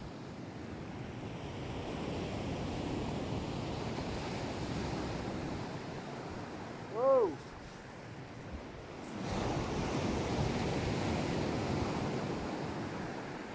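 Sea surf breaking on the shore with wind on the microphone, swelling and fading in two long surges. About halfway through comes a brief pitched sound that rises and falls.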